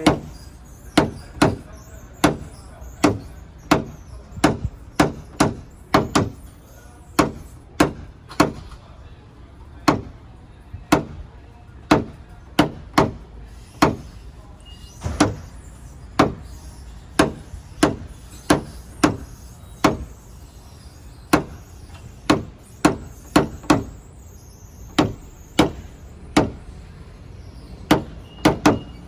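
Sharp taps from a paintless dent repair hammer and tool on a car's sheet-metal panel, tapping the metal down and level. About one or two light taps a second, some in quick pairs, kept up steadily.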